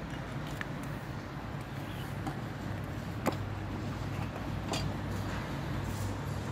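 A steady low engine hum, as from a vehicle or machine running on a building site, with a few sharp knocks and clinks over it.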